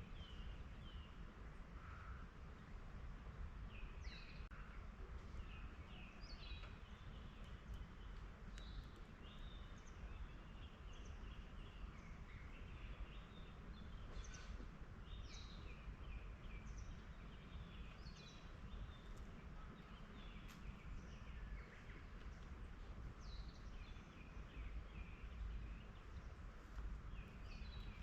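Several small forest birds chirping and calling, with many short high notes and trills scattered throughout over a steady low background rumble.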